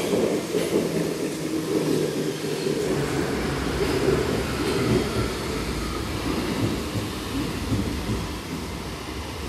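Munich U-Bahn train slowing to a stop at an underground platform: a steady rumble of wheels on rails, with a deeper rumble joining about three seconds in and the level easing off slightly toward the end.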